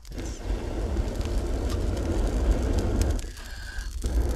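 A person blowing hard into the embers of a small campfire to rekindle it, the air rushing loudly. The blowing breaks off for a breath about three seconds in and then starts again, with faint crackles from the fire.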